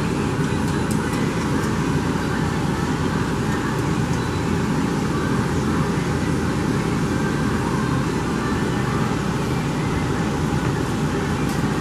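A steady rushing background noise that does not change, with a few faint clicks.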